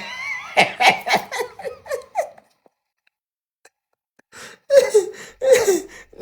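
A person laughing in a run of quick bursts, a break of about two seconds, then more laughing.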